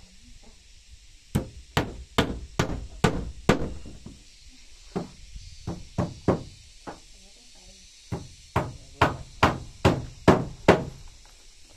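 Claw hammer driving nails into wooden floorboards: three runs of sharp, even strikes, about two or three a second, with short pauses between.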